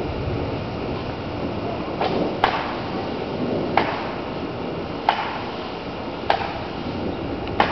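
Steady rain hiss, with a sharp tick about every second and a quarter starting about two seconds in.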